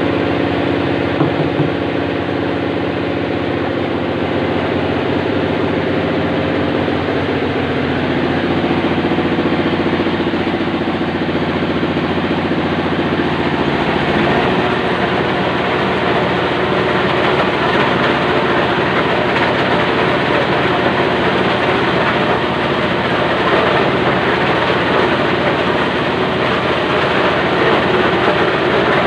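Electric grinding and mixing machine running continuously as it works chicken dough for sempol, a steady motor hum with a churning, grinding sound. About halfway through, the steady hum gives way to a rougher, even churning.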